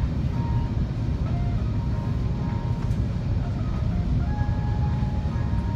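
Airbus A380 cabin noise on final approach: a steady low rumble of the engines and the airflow past the fuselage. Faint music plays over the cabin PA on top.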